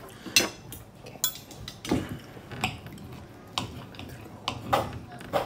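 Steel knife and fork clinking and scraping against a ceramic plate while a steak is cut, in a string of short sharp strokes.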